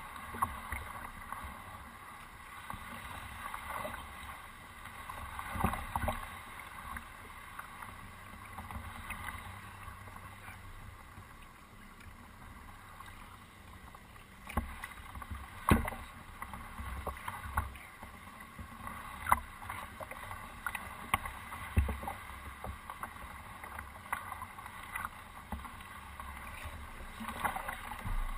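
A canoe being paddled slowly through lily pads, picked up from its bow: a low, steady wash of water and hull noise, broken now and then by sharp single knocks.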